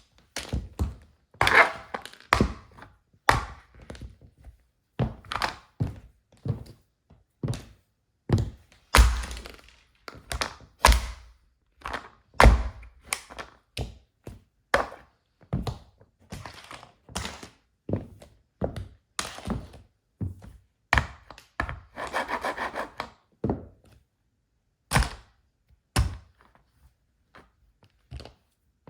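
Wedge-heeled shoes stamping on and crushing a toy car: a long irregular run of sharp thunks and cracks, several of them followed by about a second of crunching and grinding as the heel works into the toy.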